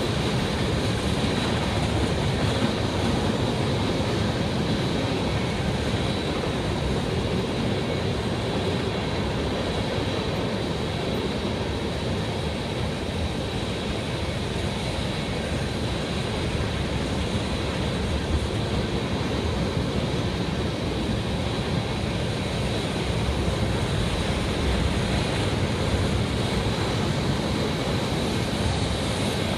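Freight train of loaded tank cars rolling past close by, a steady, unbroken noise of steel wheels running on the rails.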